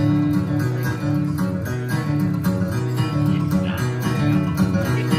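Solo acoustic guitar playing a steady, rhythmic instrumental intro, with repeating bass notes under picked and strummed chords.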